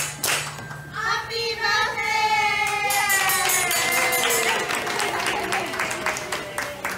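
A group of women singing a birthday song together with hand-clapping, the song ending on one long held note that slowly sinks in pitch.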